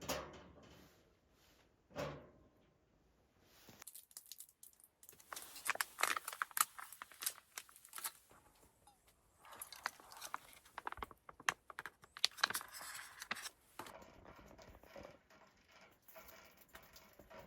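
Two dull knocks about two seconds apart, then about ten seconds of crinkling and rustling handling noise, as of material being gathered or packed.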